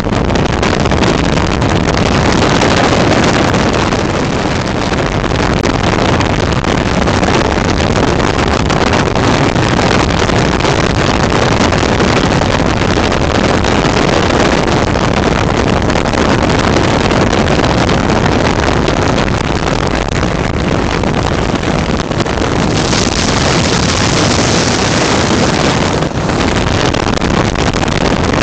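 Flex-wing microlight in flight: its engine and propeller run steadily under a loud rush of wind on the microphone. The high hiss swells for a few seconds near the end.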